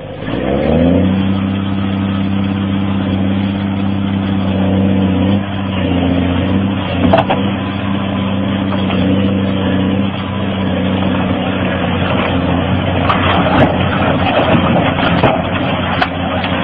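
Caterpillar excavator's diesel engine revving up about half a second in, then running steadily at high revs. Toward the end, rocks crackle and clatter as the slope of loose rock gives way.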